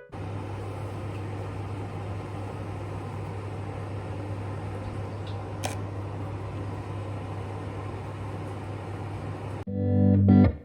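Steady low hum and hiss of a running machine or appliance, with one faint click about halfway through. Music with low notes comes in near the end.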